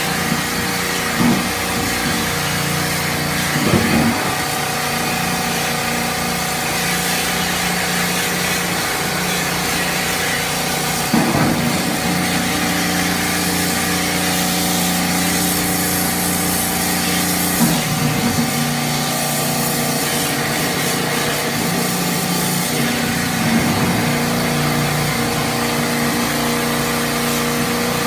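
A motor-driven machine running steadily: a hum with a hiss over it, the hum shifting in pitch a few times, with a few short knocks.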